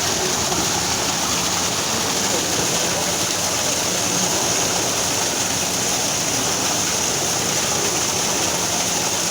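Waterfall: water rushing in a loud, steady roar without a break.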